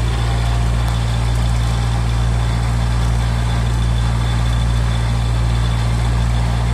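Mini tractor engine running at a steady pace, driving a post hole digger auger: a loud, constant low drone with no change in speed.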